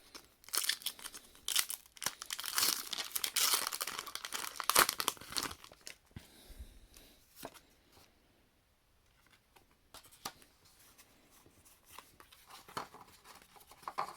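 Pokémon Sword and Shield booster pack's foil wrapper crinkling and tearing open, loud for about the first six seconds. After that come only soft rustles and light clicks of cards being handled.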